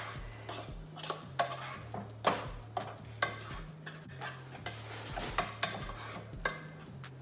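A utensil stirring pasta in a cooking pot, knocking and scraping against the pot in irregular clicks, over a low steady hum.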